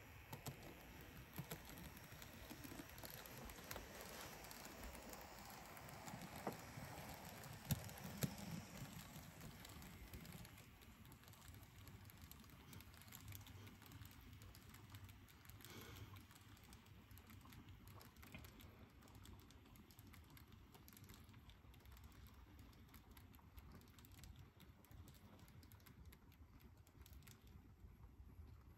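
Faint, irregular clicking of an N gauge Class 66 model locomotive and its container wagons running over the layout's track, with a few louder ticks early in the run.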